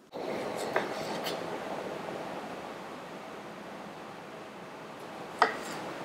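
Cherry tomatoes being cut and handled on a bamboo cutting board: a few sharp knocks on the wood, the loudest near the end, over a steady hiss.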